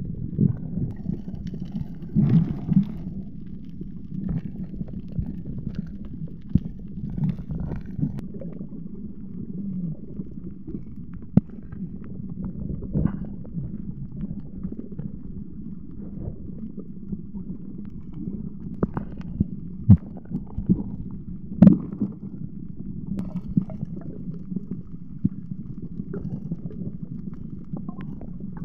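Muffled underwater sound picked up by a submerged camera: a steady low water rumble with scattered clicks and knocks, the sharpest two close together near the end.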